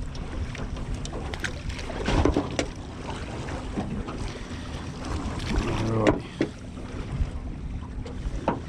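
Wind buffeting the microphone on a small drifting fishing boat, with water lapping at the hull and scattered knocks and clicks.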